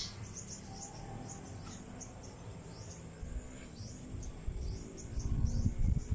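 Birds chirping, short high falling chirps about three times a second, over a steady high-pitched insect drone. A low rumble on the microphone grows louder near the end.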